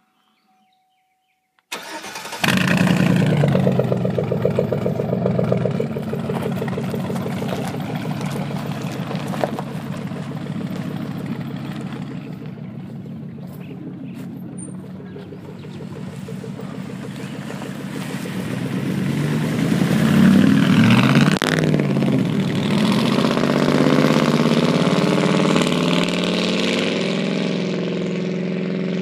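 A 2005 Chevrolet Silverado 1500's 5.3-litre V8 cranks and catches about two seconds in, running through true dual 2.5-inch straight pipes with the catalytic converters kept. It flares loudly on start-up and settles to an idle, then is revved up in the second half and held at higher revs toward the end.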